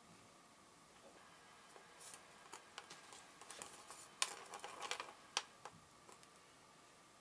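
A scatter of faint, short clicks and light crackles in quiet room tone, starting about two seconds in and stopping about five and a half seconds in. The sharpest click comes a little past four seconds.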